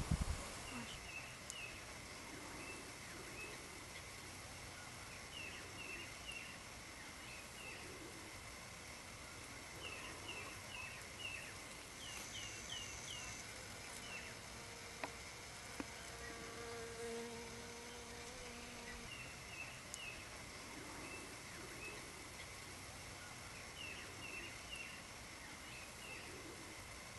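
Quiet garden outdoor ambience with a flying insect buzzing for a few seconds in the middle. Over it come repeated short chirps in quick groups of three to five, and a faint steady high hum.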